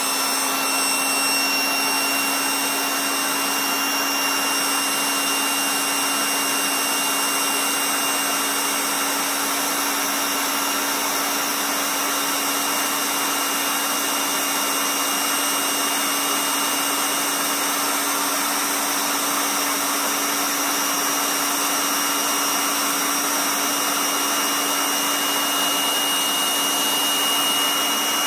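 Intex AC electric air pump running steadily as it inflates an exercise ball, an even motor whine over a rush of air.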